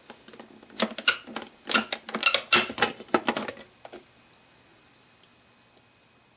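Clear plastic lid of a food processor bowl being twisted off its latch and lifted away, a quick run of plastic clicks and scrapes lasting about three seconds.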